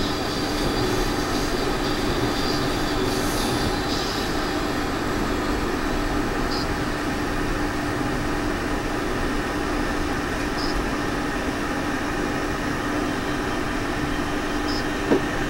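Passenger train running at speed, heard from inside the carriage: a steady rumble of wheels on rails with a steady low hum, and one sharp knock near the end.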